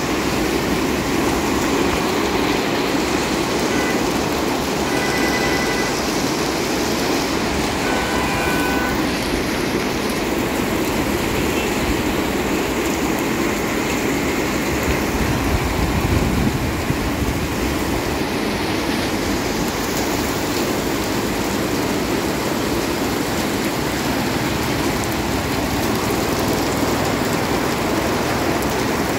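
Heavy rain pouring steadily, with vehicles driving through deep floodwater on the road and throwing up spray.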